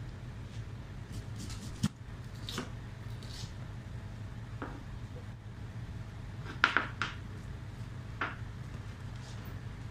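Chef's knife slicing a red onion on a plastic cutting board: several separate knocks of the blade on the board, the loudest a quick cluster about two-thirds of the way in, over a steady low hum.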